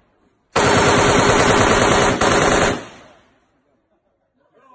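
M16 rifle firing a long fully automatic burst of 5.56 mm rounds, lasting a little over two seconds with a brief hitch near the end. The shots ring on for a moment after the burst stops.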